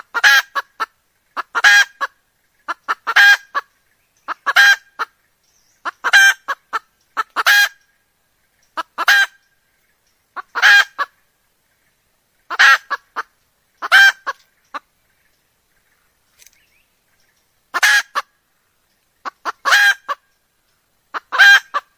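Red junglefowl hen cackling: a burst about every one and a half seconds, each a few short notes leading into one louder, longer note, with a longer pause about two-thirds of the way through. It is a hen's call in breeding condition, the kind used to call in males.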